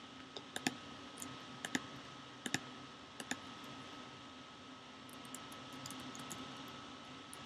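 Computer keyboard and mouse clicks while looking something up: a few sharp clicks, some in quick pairs, in the first few seconds, then lighter rapid key taps a little past the middle.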